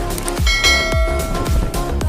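Background electronic music with deep, falling bass kicks, and a bright bell-like chime struck about half a second in that rings out for about a second.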